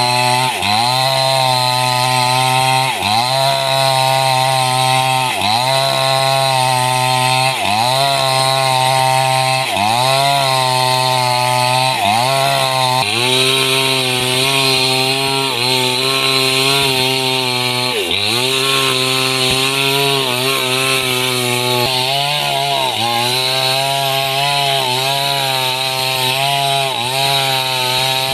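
Large two-stroke chainsaw running hard while cutting wood into 4x10 cm lumber. Its engine note dips and recovers every two to three seconds as the chain bites into the timber.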